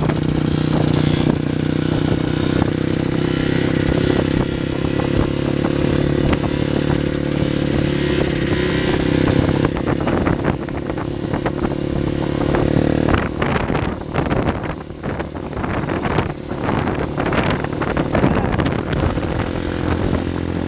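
Sport quad (ATV) engine running at a steady speed while the quad rides along in a wheelie. About two-thirds of the way through, the engine note becomes unsteady and irregular thumps and clatter break in.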